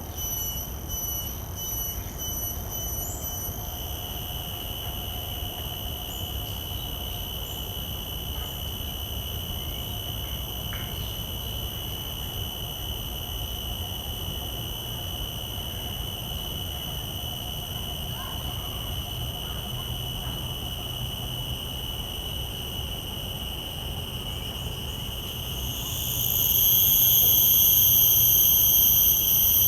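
Common cicadas singing from nearby trees: a steady, high-pitched whine that pulses for the first few seconds and then holds an even tone. About 26 seconds in, the closest cicada starts its call and the sound grows much louder.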